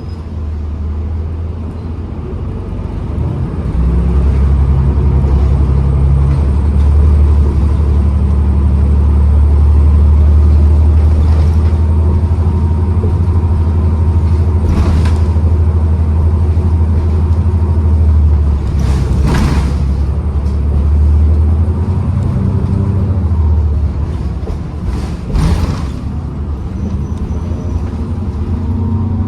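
2012 New Flyer XDE40 diesel-electric hybrid bus under way, its engine rumble swelling about four seconds in and easing off near the end, with a faint steady whine and a few sharp knocks or rattles.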